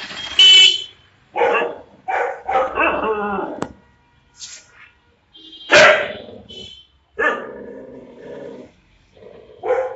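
A dog barking in a string of separate barks, several drawn out into longer calls about a second long with a wavering pitch. The loudest barks come about half a second in and just before the six-second mark.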